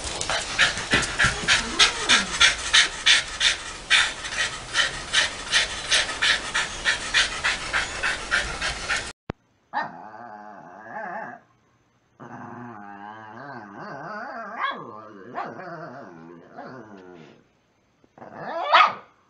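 A small dog panting hard in quick, even huffs, about three a second. After an abrupt break, small long-haired dogs (Shih Tzu-type) growl in long, drawn-out play growls, with one sharp bark or yip near the end.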